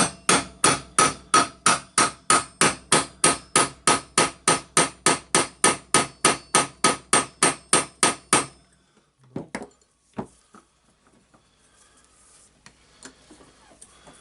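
A fast, even run of hammer blows, about three or four a second, struck on the orbital sander's armature to drive it out of its ball bearing. Each blow has a metallic ring. The hammering stops about eight seconds in and is followed by a few light clatters of parts being handled.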